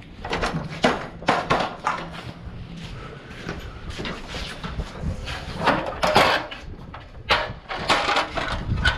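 Irregular knocks and thumps from carpentry work on a timber roof frame, about a dozen in all, the loudest a little past the middle and near the end.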